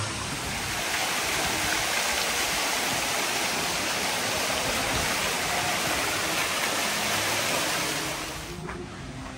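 Fountain jets splashing into marble basins: a steady rush of falling water, which drops away somewhat near the end.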